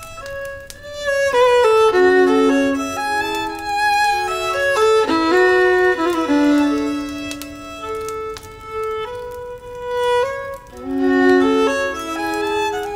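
Several violins playing a tune together in harmony, with held notes under a moving melody.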